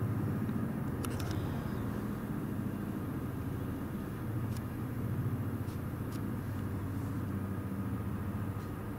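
Low-flying helicopter overhead: a steady low rotor rumble with a fast, even pulse.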